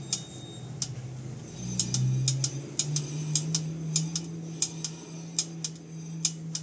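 Repeated sharp ticks from a motorcycle's front wheel as it turns, roughly two a second, over a low steady hum. The ticking is the creak traced to the dry, rusty speedometer cable at the wheel, short of lubrication.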